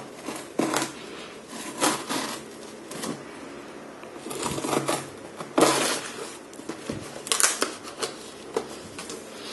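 Knife slicing through the packing tape on a cardboard box, in a series of uneven scraping and ripping strokes with the cardboard rustling as it is handled.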